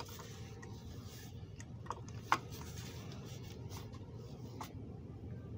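Faint, irregular clicks and small knocks from a plastic oil-filter housing cap being tightened down onto its aluminium seat, with two sharper clicks about two seconds in, over a steady low hum.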